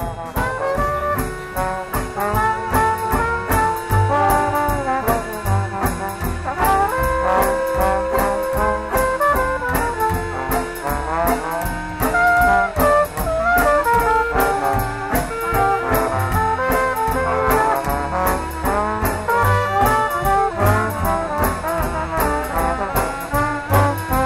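Traditional jazz band playing, with trumpet, trombone and clarinet over double bass and drums keeping a steady beat.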